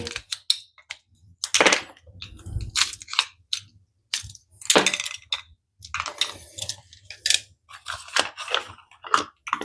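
Irregular clicks and clatter of batteries being handled: old ones set down, and new ones picked up and fitted into the plastic battery chamber of an electronic door lock.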